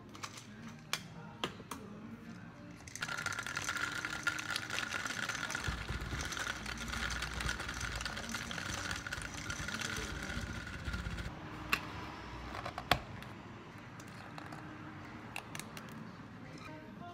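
Clear plastic dome lids and a plastic cup being handled, with scattered sharp clicks and taps. From about three seconds in until past the middle, a steady mechanical whirring hiss runs underneath.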